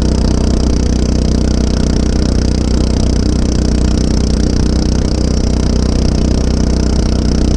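A small engine running steadily at constant speed, without change in pitch.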